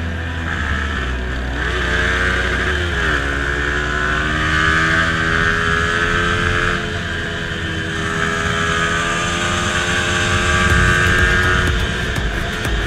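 Yamaha MT-15's 155 cc single-cylinder engine running under way, its pitch rising and then dropping sharply about three seconds in, then holding fairly steady with small rises and falls as the bike is ridden.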